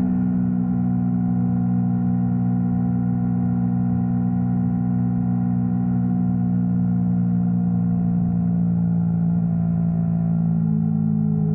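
Yamaha R3's parallel-twin engine running at a steady cruise, its note holding almost constant and easing very slightly lower.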